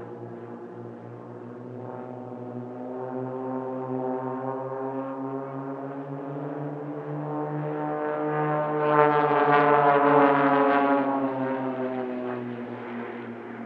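Propeller aircraft engines of the Blades' Extra 300 aerobatic planes droning overhead, growing louder to a peak about nine to ten seconds in. After the peak the pitch drops and the sound fades as they pass.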